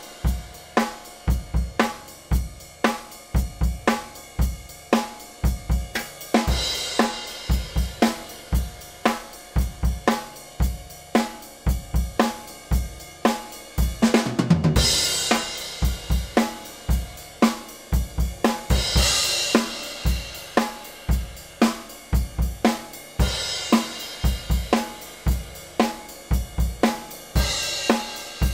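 Acoustic drum kit played in a steady beat, with kick drum, snare and hi-hat, and a cymbal crash about four times.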